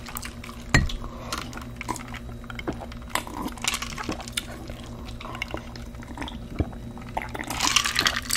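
Eating sounds from a plate of nachos: scattered light clicks and taps, one stronger about a second in, growing into denser crackling near the end.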